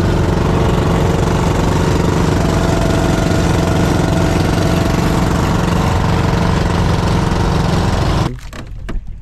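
A fishing boat's engine running steadily and loudly at close range, then cutting off suddenly about eight seconds in.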